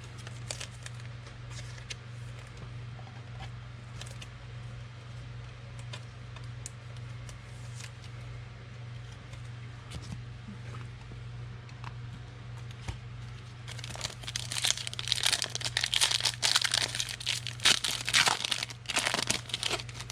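Trading-card pack wrapper being torn open and crinkled by hand, loud and dense from about fourteen seconds in, after a stretch of faint scattered clicks.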